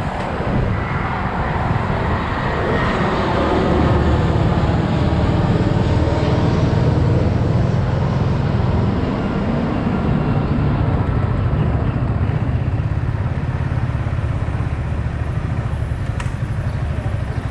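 Yamaha XSR 155's single-cylinder engine running on the move, its note rising and falling over the first several seconds and then holding steady, with traffic noise around it.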